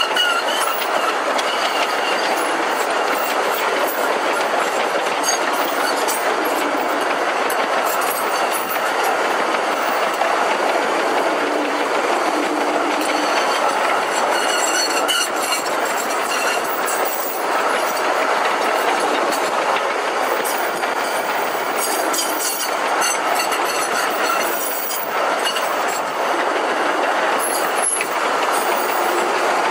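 Sugar cane train running on narrow-gauge cane railway track: a steady running noise of the wheels on the rails, with occasional clicks.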